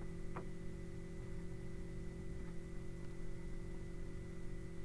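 Steady low electrical hum with faint hiss, with one faint click about half a second in.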